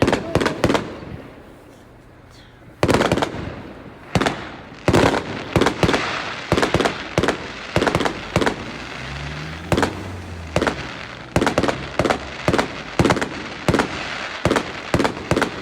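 Fireworks going off: a rapid series of sharp bangs with crackling between them. After a short lull about a second in, the bangs come thick and fast, several a second.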